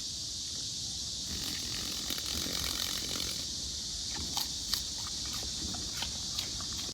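Steady hiss with a few faint clicks.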